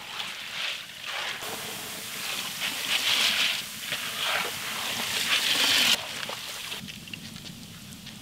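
Split chickpeas (chana dal) deep-frying in hot oil in a large wok, the oil sizzling and bubbling while a metal skimmer stirs through them. The sizzle swells and fades, then drops off about six seconds in.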